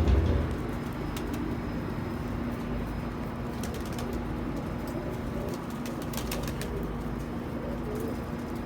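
Domestic pigeons cooing and moving about in their loft, with a low thump at the start and a few short clicks in the middle.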